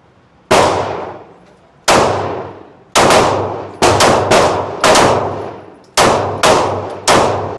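About a dozen gunshots fired one at a time during a warm-up string at a shooting range, each with a long ringing tail. The first few are spaced more than a second apart, then they come faster, some in quick pairs.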